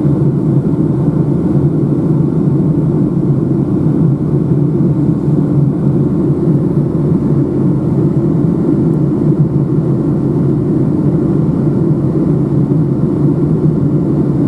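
Steady cabin noise inside a Boeing 757-200 descending on approach, heard from a seat over the wing. It is an even, low rumble of engines and airflow that does not change.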